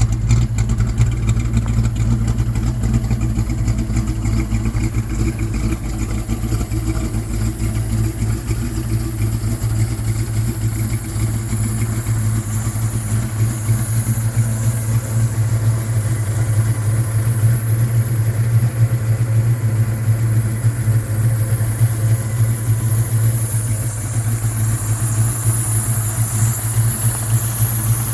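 1966 Plymouth Satellite's V8 idling steadily with a rumbling exhaust, warm after a long drive.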